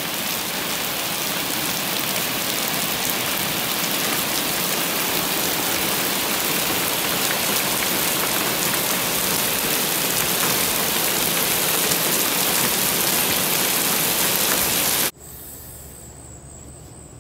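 Steady rain falling on a paved road, drain grates and a tiled walkway, a dense even hiss. It cuts off suddenly about fifteen seconds in, leaving a much quieter steady high insect drone.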